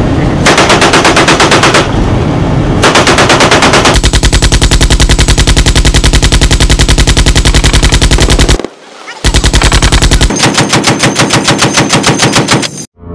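Machine guns firing long automatic bursts, one run of rapid shots after another, with a short break about two thirds of the way through. Near the end the shots come more slowly and evenly spaced.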